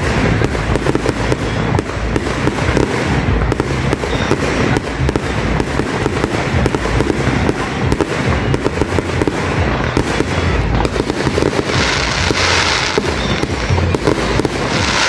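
Fireworks display: a rapid, unbroken barrage of aerial shells bursting and crackling, with a deep rumble of booms under it and a hissing rush about twelve seconds in.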